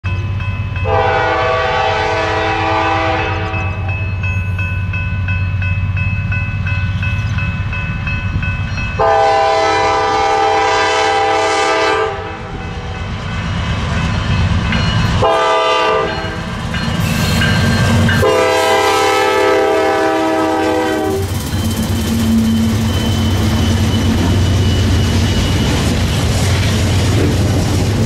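Horn of GE C44-9W diesel locomotives sounding the grade-crossing signal, long, long, short, long, over the steady rumble of the diesel engines. After the last blast the locomotives pass and the freight cars roll by with a running clatter of wheels.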